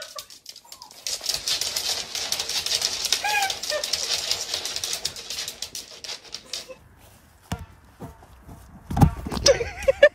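A small dog's claws clicking and scrabbling rapidly on a hard wooden floor as it strains against a hold on its coat, for several seconds. A loud thump follows near the end.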